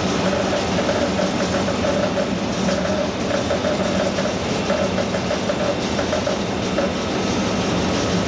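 British Rail Class 47 diesel locomotive heard from inside its cab while running: a steady drone of the diesel engine mixed with wheel-on-rail noise.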